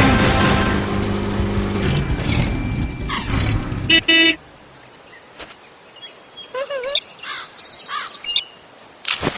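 Cartoon sound effects: a vehicle engine rumbling with a falling pitch sweep that stops about two seconds in, a short car-horn honk about four seconds in, then a few quick bird chirps and a sharp click near the end.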